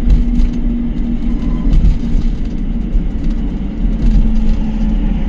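Motor tricycle driving along a highway: a steady low road rumble with a steady hum running under it.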